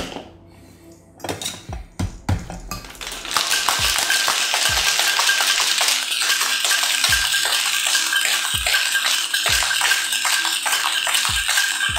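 A few clinks of ice and metal, then, about three seconds in, a metal cocktail shaker is shaken hard with ice in a loud, fast, continuous rattle. This is the wet shake of an egg-white sour after its dry shake.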